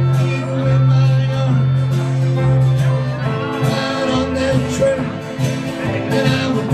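Live band music: a fiddle and guitars playing a country-style tune, with a voice singing over a steady bass.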